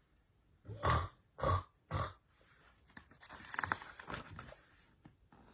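A woman imitating loud snoring: three short snorts about half a second apart, then a longer, quieter noisy breath.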